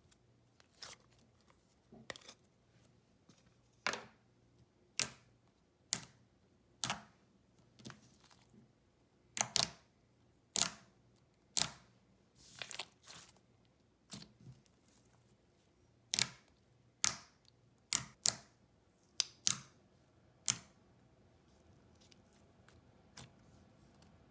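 Thick, creamy clicky slime being pressed and stretched by hand, giving off sharp separate clicks and pops, about one a second and sometimes two close together, which stop a few seconds before the end.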